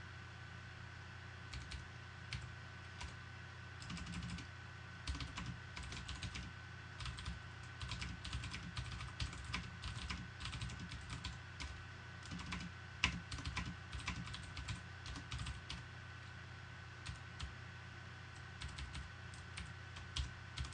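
Typing on a computer keyboard: irregular runs of keystrokes that begin about a second and a half in and pause briefly near the end, one keystroke partway through louder than the rest. A faint steady hum with a thin high tone runs underneath.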